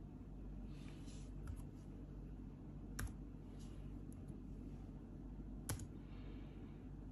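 Laptop keys or touchpad being clicked: a few scattered sharp clicks, three stand out, with softer brushing taps between, over a steady low background hum.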